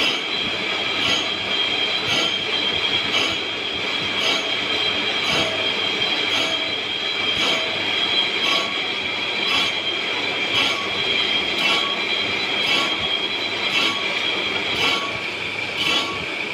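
Tool-post grinder on a lathe grinding an injection-molding machine screw, metal on an abrasive wheel: a steady high-pitched whine with a grinding pulse about once a second.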